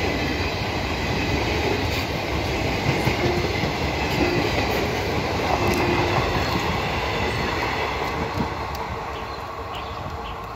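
Indian Railways passenger coaches rolling past close by, their wheels clattering over the rail joints. Over the last couple of seconds the rumble fades as the end of the train draws away.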